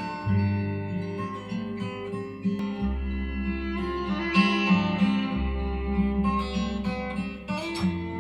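Music led by plucked acoustic guitar over deep held bass notes that change every two to three seconds.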